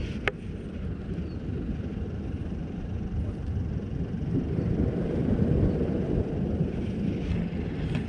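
Low, steady rumble of wind on the microphone, with a single sharp click about a third of a second in.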